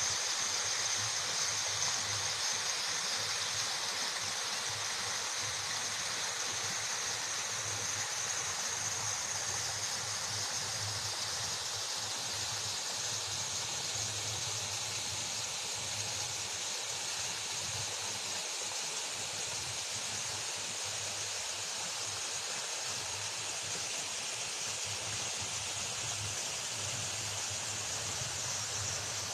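Waterfall: a steady, unbroken rush of falling water, hissy in the highs.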